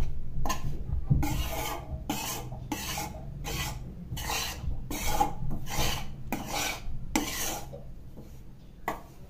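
A spatula scrapes the bottom of a kadhai, pushing dry wheat flour around as it roasts in a little ghee. The rasping strokes come about one and a half a second and thin out near the end. The constant stirring keeps the flour from sticking to the pan and burning.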